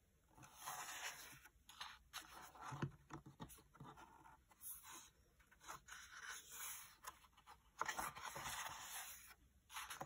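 Faint rustling and scraping of paper as the pages of a colouring book are turned and hands slide over the pages, coming in several soft swells.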